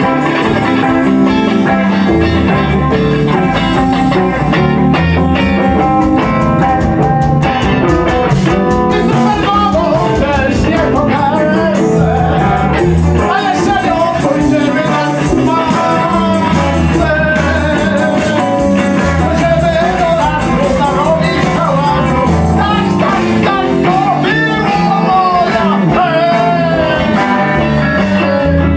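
Live band improvising: several electric guitars and drums playing together, with a man singing into a microphone over them.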